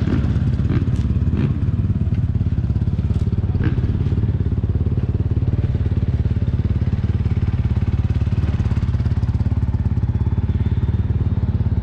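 Rally motorcycle engine idling steadily close to the microphone, an even, fast low pulsing, with a few light clicks in the first few seconds.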